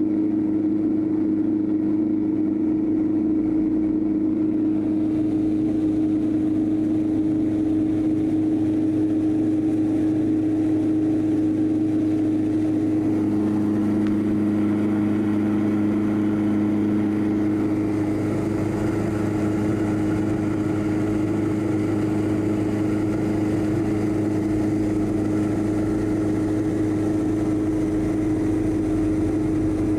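Corn mill running steadily with a constant hum while it cracks dried corn kernels for chicken feed. A second, lower tone joins briefly from about 13 to 17 seconds in.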